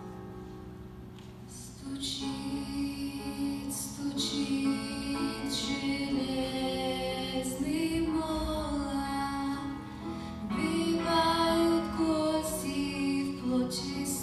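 A song playing: gentle instrumental music with a woman's voice singing the melody, building up about two seconds in.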